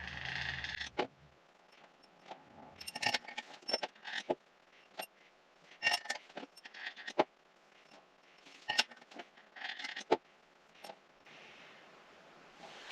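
Steel cylinder-head bolts and their washers being dropped into the bolt holes and handled on a Subaru EJ25 engine. They make a scattering of short, sharp metallic clinks and ticks at uneven intervals.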